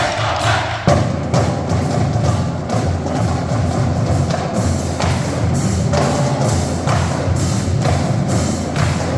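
Marching band drumline playing loud, fast percussion with rapid sharp strokes. Heavy low drums come in sharply about a second in.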